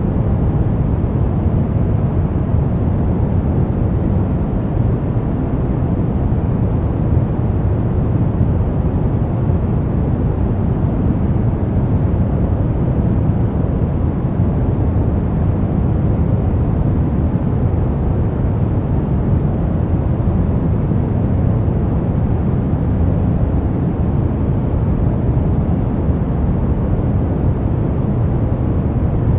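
Steady brown noise: an even, deep rushing hiss, weighted to the low end, with no changes or events.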